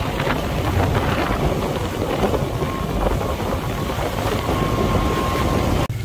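Fishing boat running under way, its engine a steady low rumble under heavy wind buffeting on the microphone and water rushing past the hull. The sound cuts off abruptly near the end.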